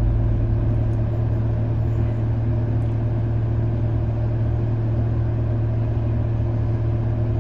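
A vehicle's engine idling steadily, heard from inside the cab, with a low even hum. It is held at idle with no accelerator given.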